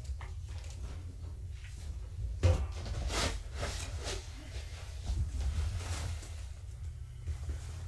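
Scattered knocks, thumps and scratchy rustles from kittens playing with toys and moving about, one sharper knock about two and a half seconds in, over a steady low hum.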